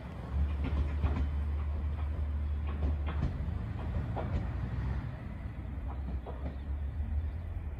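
Kishu Railway KR205 diesel railcar pulling away, its engine a low steady rumble that eases after the first few seconds as it draws off. Irregular clicks and knocks come from the wheels passing over the track as it moves off.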